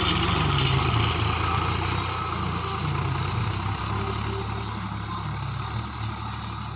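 Swaraj 744 XM tractor's three-cylinder diesel engine running steadily under load as it pulls a tined implement through dry soil, growing gradually fainter as it drives away.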